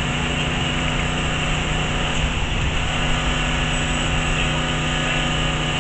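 A motor running steadily: an even, unchanging hum with a low drone that neither rises nor falls.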